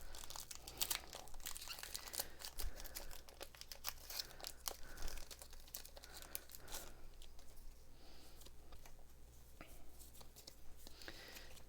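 Pokémon card booster pack packaging being torn open and crinkled by hand: many sharp crackles, busiest for the first seven seconds or so, then sparser handling.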